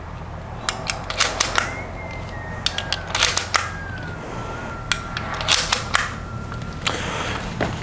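Metallic clicks and clacks in several quick irregular clusters as a lever-action CO2 airsoft rifle is handled and readied for the next string of shots.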